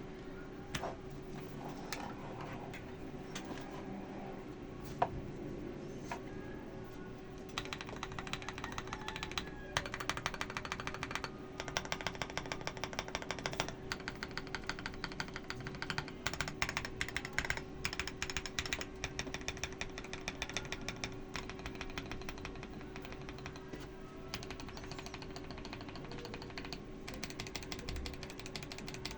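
Typing on a Redragon Fizz K617 mechanical keyboard with hand-lubed Akko Rose Red linear switches, XDA PBT keycaps and foam and stabilizer mods, through a phone microphone. It starts with a few separate keystrokes, then from about eight seconds in comes fast typing in bursts.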